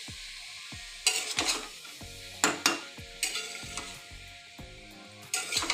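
Flat metal spatula stirring and scraping grated carrots in a metal pan, over a steady sizzle of the carrots frying in ghee. Sharp scrapes of the spatula on the pan come about a second in, twice around two and a half seconds, and again near the end.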